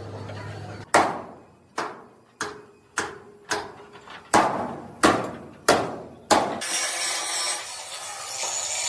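Hammer blows, about nine sharp strikes in steady rhythm, each ringing briefly, as a heavy-vehicle part is worked on. Near the end the strikes stop and a steady rushing noise takes over.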